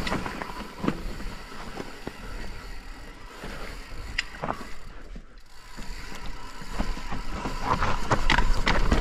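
Mountain bike coasting down a rough technical trail: the rear hub's freewheel ticks, and the bike clicks and rattles over the rocky ground. The rattling grows louder from about seven seconds in.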